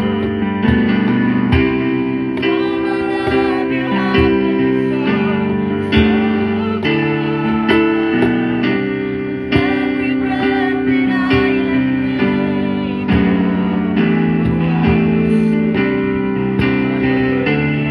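Guitar music: plucked and strummed chords with held notes and a steady pulse.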